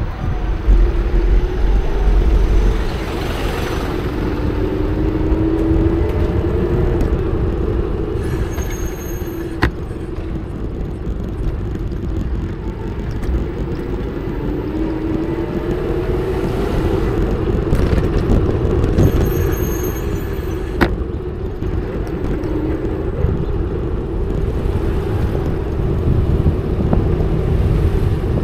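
Street traffic and road rumble heard from a moving e-bike, with a hum that slowly rises and falls, and wind on the microphone. Twice a brief high-pitched squeal cuts in.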